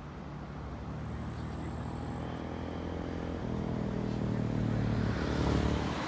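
A motor vehicle's engine running and growing steadily louder as it draws near, its pitch shifting about halfway through, then cut off abruptly near the end.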